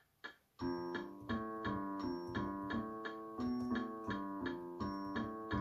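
SouidMy G-310W digital keyboard played with a piano voice: a simple tune of notes and chords that starts about half a second in. It plays over the keyboard's built-in metronome ticking fast, at about two ticks a second, set to 127.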